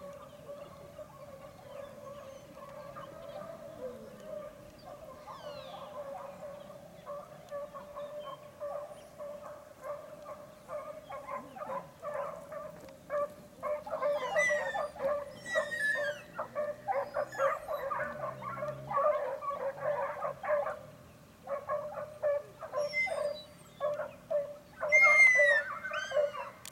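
Pack of hunting dogs baying and yelping on a chase, continuous at first and turning into dense rapid yelping about halfway through, with louder bursts near the end. Higher gliding yelps or chirps come over it a few times.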